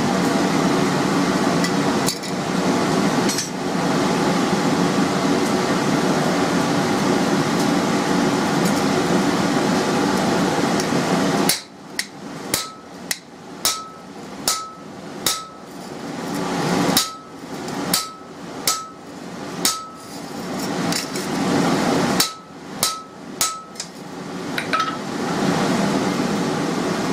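A hand hammer striking a red-hot mild steel bar on an anvil: about fifteen sharp blows in short uneven runs through the second half, each with a brief metallic ring. Before the blows there is a steady rushing background noise.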